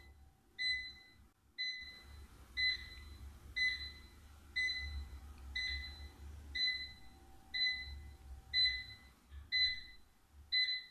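Electronic beeper sounding a steady run of short high beeps, the louder ones about once a second.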